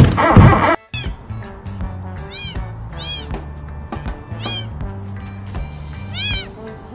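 Young kitten giving short, high-pitched mews, several in a row at intervals of about a second, over background music. A loud, rhythmic passage cuts off abruptly just under a second in.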